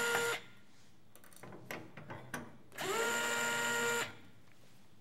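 Cordless electric screwdriver running as it drives out screws from a metal equipment case. A run ends a moment in, then a second run of about a second spins up quickly to a steady whine. Faint handling clicks fall between the runs.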